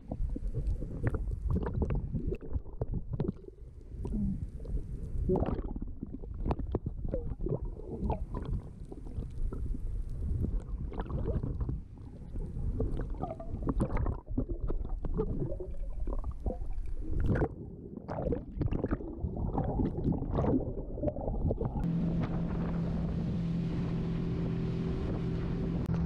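Muffled underwater sound from a camera held in the sea: a low rumble with irregular clicks and crackles of water and handling against the housing. Near the end this gives way to a steady boat engine hum with wind on the microphone.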